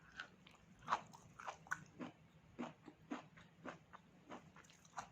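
A person chewing pork close to the microphone: a run of short chewing sounds, about two to three a second.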